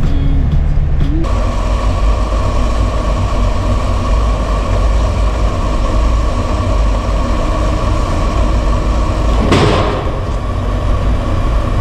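Land Rover Defender's engine running, heard from inside the cab: first driving on the road, then, after a cut about a second in, idling steadily with a constant hum. About ten seconds in there is a brief loud rush of noise.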